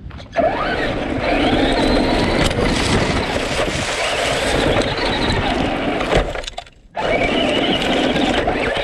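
Traxxas Rustler 4x4 RC truck driving hard, heard from a camera on the truck: the electric motor and drivetrain whine, rising in pitch as it accelerates, while the tyres crunch and crackle over dry leaves, twigs and dirt. The sound drops away briefly about three-quarters of the way through, then picks up again.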